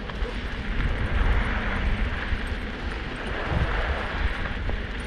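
Steady rushing noise of a Kickbike Fat Max kick scooter's tyres rolling over a gritty, snow-packed road, with wind rumbling on the microphone.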